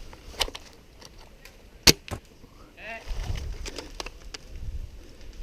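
Sharp snaps and clicks, the loudest a single sharp crack about two seconds in with a lighter one just after, then a brief distant voice and low rumbling, rustling movement on the microphone.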